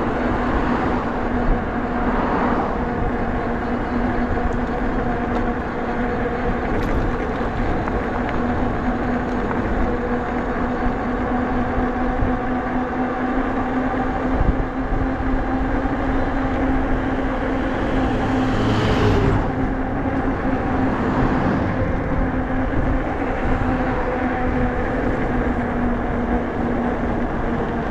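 Nakto F6 electric fat bike riding on throttle alone at about 19 mph: a steady hum from the hub motor and fat tyres on asphalt under a rushing noise. A brief louder rush swells about two-thirds of the way in.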